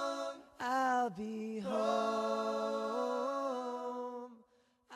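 Music: the end of a song, a voice holding long sung notes with little accompaniment, breaking off briefly about half a second in and fading out near the end.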